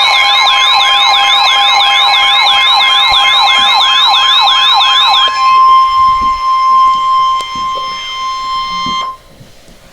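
Electronic emergency alert tones: a fast siren-like warble sweeping up and down about three times a second over steady tones. The warble stops about five seconds in, leaving one steady alarm tone that cuts off near the end. It is the attention signal that comes before a broadcast weather warning.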